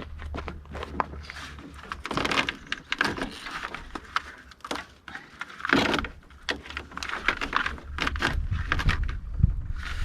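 Irregular clicks, knocks and rustling scrapes of hands working on wiring: pulling and disconnecting wires and connectors of an old vehicle wiring harness. A low hum sits under the start.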